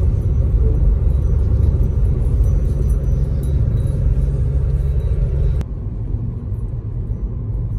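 Steady low rumble of a moving car heard from inside the cabin: engine and road noise. About two-thirds of the way through it drops abruptly to a quieter rumble.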